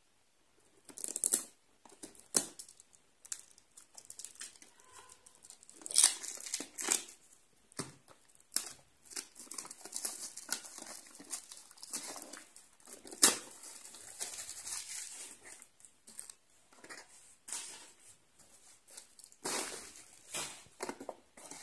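Small cardboard box being opened by hand: irregular tearing, crinkling and scraping of card and paper packaging, with a few sharp clicks and knocks.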